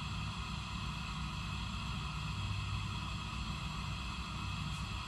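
A steady, low mechanical hum that does not change.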